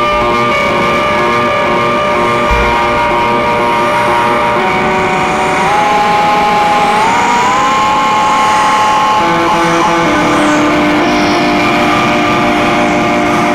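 Free-improvised space-drone music from an electric guitar and a Korg Monotron Delay analogue synth through delay and a Peavey Classic amplifier: layered held tones over a hiss. About six to seven seconds in, one tone slides upward in pitch, and a lower held tone comes in about nine seconds in.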